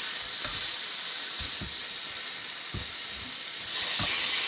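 Bacon sizzling in a frying pan with a steady hiss and a few small pops of fat, getting a little louder near the end.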